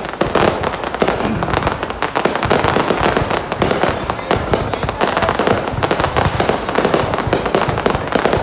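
Fireworks display heard from close to the launch site: a dense, continuous barrage of bangs and crackling pops, many a second without a break.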